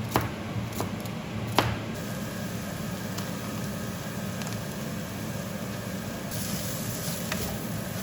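Three knocks of a knife on a cutting board in the first two seconds, then a steady low hum from an appliance or fan, with a hiss joining it about six seconds in.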